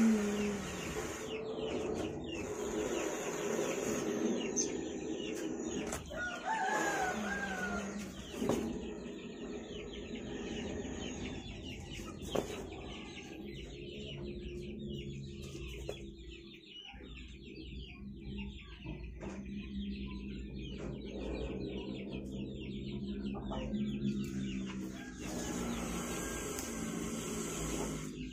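Chickens clucking, with a rooster crowing once about six and a half seconds in.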